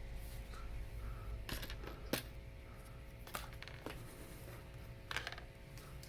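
Hard plastic Lego Hero Factory pieces being handled and snapped together: a handful of sharp, irregularly spaced clicks and clacks.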